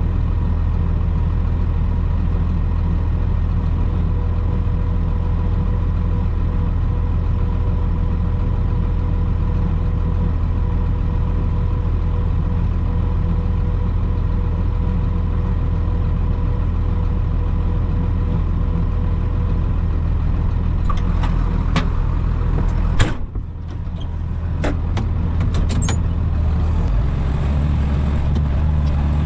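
A vehicle engine running steadily at constant speed. About three quarters of the way through there are a few clicks and one sharp knock, after which the engine note shifts.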